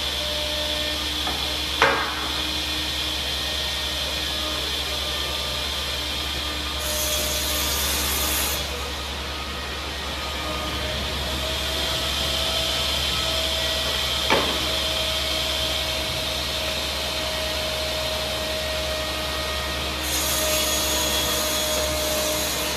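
Altendorf F45 ELMO sliding table saw running steadily, its blade cutting wood panels, with two stretches of louder, higher cutting noise about seven and twenty seconds in. Two sharp knocks sound, about two and fourteen seconds in.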